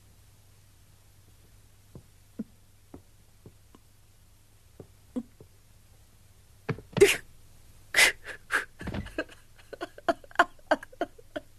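A boy crying: a few short sniffs and catching breaths, then from about seven seconds in a run of loud, gasping sobs.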